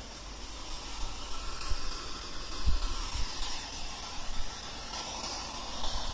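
Steady hiss of background noise, with a couple of soft low thumps about two and three seconds in.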